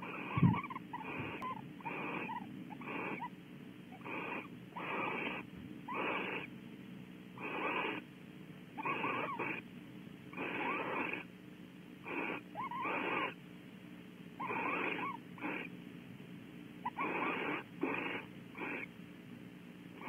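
Barn owls giving repeated breathy, hissing calls, roughly one a second, mixed with a few short chittering notes, the calls of a pair bonding and mating. A single dull thump comes about half a second in.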